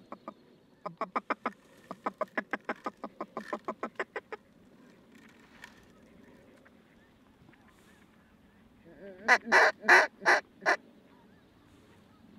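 Duck quacking: two quick, evenly spaced runs of short quacks in the first four seconds, then five loud quacks near the end.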